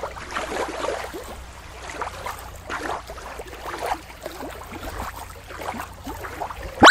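Small waves washing and lapping at the water's edge, swelling and falling about once a second. A single sharp click comes near the end and is the loudest sound.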